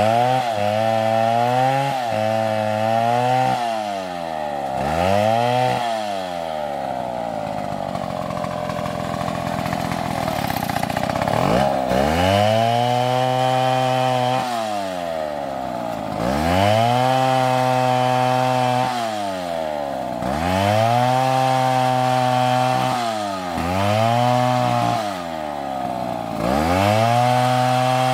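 Large STIHL two-stroke chainsaw revved to full throttle again and again, each burst held for one to three seconds as the chain cuts through the limbs of a felled tree, then dropping back toward idle. For several seconds about a quarter of the way in it runs lower and steadier before the revving cuts resume.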